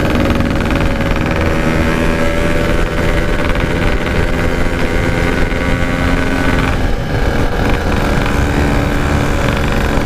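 Yamaha RX King's 135 cc two-stroke single-cylinder engine running steadily under way. The engine note shifts slightly about three seconds in and again about seven seconds in.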